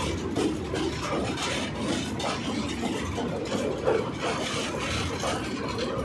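Indian Railways passenger train coaches rolling past close by: a steady rumble of wheels on the rails, with repeated irregular clacks and knocks from the bogies and rail joints.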